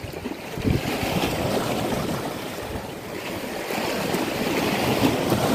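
Sea surf washing over shoreline rocks, with wind buffeting the microphone.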